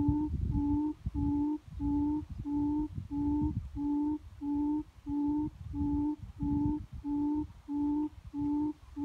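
A croaking lure set out to attract frogs: short pitched croaks repeat very evenly, about two a second, each bending slightly upward. A low rumbling noise runs underneath.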